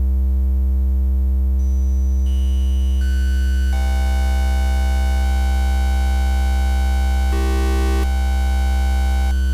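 Low, steady triangle-wave drone from a modular synthesizer oscillator passing through a Doepfer A-189-1 bit crusher. As the signal is driven harder into the crusher, high-pitched overtones come in step by step over the first few seconds, turning the tone buzzy and harsh, with a brief brighter stretch near the end.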